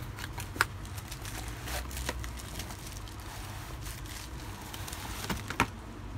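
Bubble wrap crinkling and a cardboard box rustling as a wrapped riflescope is slid out of its box, with scattered crackles and two sharper clicks, one about half a second in and one near the end, over a steady low hum.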